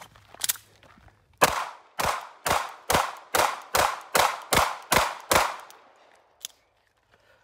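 Sig P365 pistol fired ten times in quick succession, about two shots a second, each shot ringing out briefly. A single click follows about a second after the last shot.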